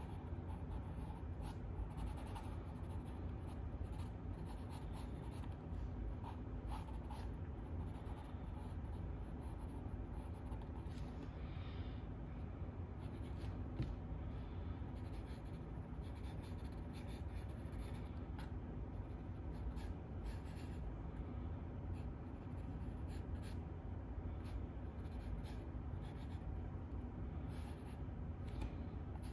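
Drawing strokes on sketchbook paper: a drawing tool scratching in short, irregular strokes, over a steady low background hum.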